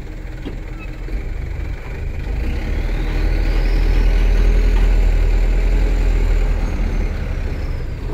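Diesel truck engine revving under load while pulling against a stuck truck, growing louder for a few seconds and then easing off. A high whine rises with it and falls away near the end.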